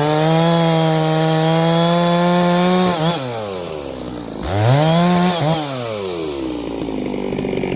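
Neo-tec NS892 two-stroke chainsaw revved up and held at full throttle for about three seconds, then dropped back, given a second shorter burst of throttle, and left to run down toward idle.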